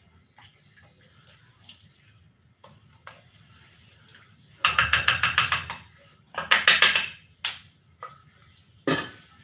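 A metal spoon rattling fast against the inside of a cooking pot in two quick bursts about halfway through, then single clanks of metal on metal, the loudest near the end as the pot lid is handled.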